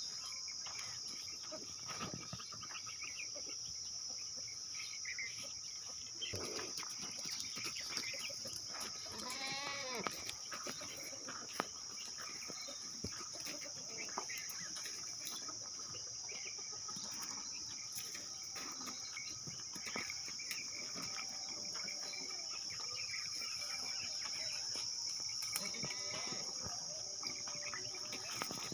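Goats bleating now and then, a few separate calls, over a steady high-pitched insect drone.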